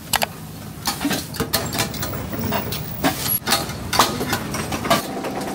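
Metal spatulas tapping and scraping on a flat-top griddle as scallion pancakes are flipped and pressed: a run of irregular sharp clicks and knocks.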